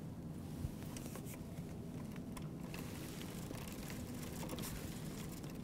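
Shimano chain drivetrain of a Huffy Tekton mountain bike turning as the pedals are cranked by hand, giving a faint, light clicking of chain over the sprockets with one small tap about half a second in. It stays in gear with no odd noises.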